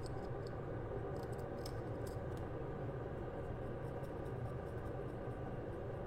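Faint scratching and clicking of a blade cutting a RAM chip free from an old A11 processor, heard mostly in the first couple of seconds, over a steady low hum.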